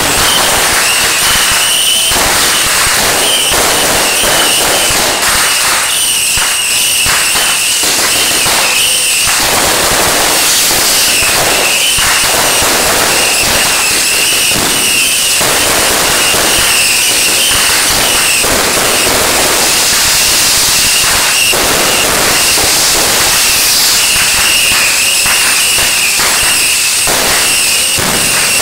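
Fireworks display: aerial shells bursting in a dense, unbroken run of crackles and bangs, with a high whistling tone through much of it.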